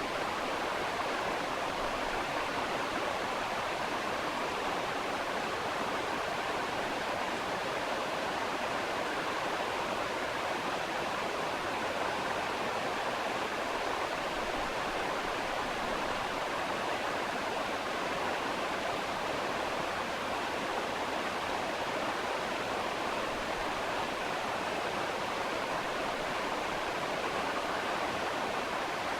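Steady, even rushing noise like a waterfall or stream, with no breaks and no separate clicks or tones.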